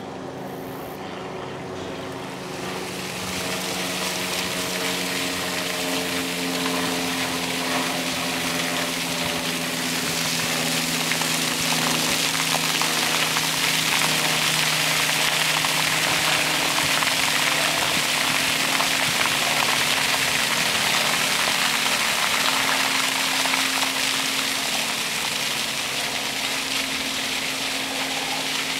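A steady mechanical engine drone, a hum of several low tones under a hiss, growing louder over the first dozen seconds and easing off slightly near the end.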